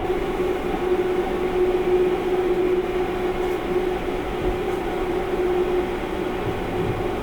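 Sunrise Izumo sleeper train (285 series electric multiple unit) running at speed, heard on board: a steady rumble with an even hum under it.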